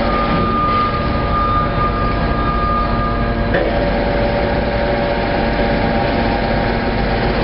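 Hydraulic metal scrap baler running: loud, steady machine noise with a whine from the hydraulic power unit that drops to a lower pitch after a short click about three and a half seconds in.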